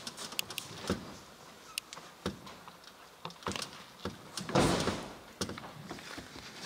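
Scattered small knocks and rustles of a barefoot person moving on a stage, then a loud, dull thump a little past halfway as a body drops onto a mattress.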